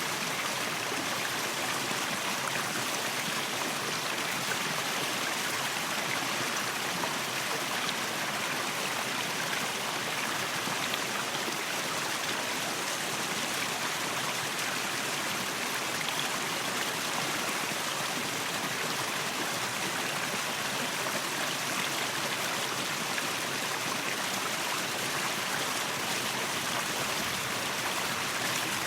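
Waterfall with water rushing and splashing in a steady, unbroken hiss.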